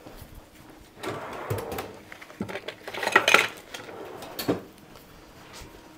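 Metal hand tools clattering and clinking as someone rummages through them for a Phillips screwdriver. It starts about a second in, is loudest about three seconds in, and ends with a sharp knock at about four and a half seconds.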